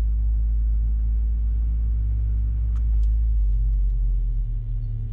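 Mazda NA Miata on the move, heard from inside the cabin: a steady low engine drone and road rumble, with a faint tap about three seconds in. Near the end the rumble eases a little and turns rougher.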